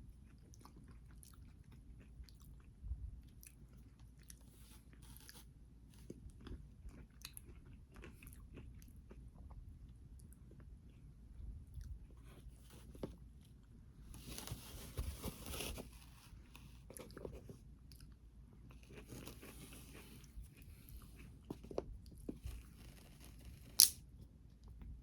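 A person chewing and biting into crunchy food, with many small wet clicks and two longer spells of loud crunching in the middle. A single sharp click near the end is the loudest sound.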